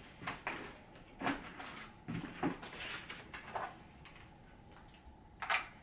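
Objects being handled and set down on a shelf: a series of light knocks and a rustle, then a quieter spell before one last sharp knock near the end.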